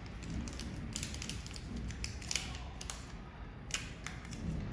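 Scattered light clicks and taps of small parts being handled on a handheld fiber laser welding head while its protective lens is swapped.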